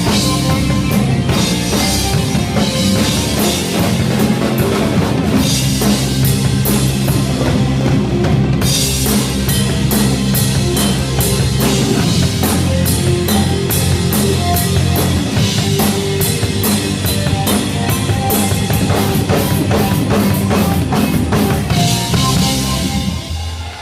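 Live rock band heard through the drummer's stage monitor mix: a drum kit with bass drum, snare and cymbals, over sustained bass and other pitched instruments. The song stops near the end.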